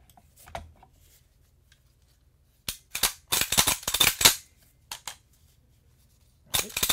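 Metallic clacks of a VZ 58-pattern rifle's action being worked by hand just after reassembly: the bolt carrier is racked back and run forward. There are two runs of rapid clatter, one about three seconds in and one near the end, with single clicks between.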